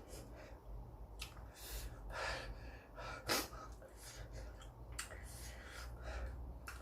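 A man's sharp, hissing breaths and sniffs through a runny nose, several in a row, the loudest about halfway through, as he reacts to the burn of very spicy ramen.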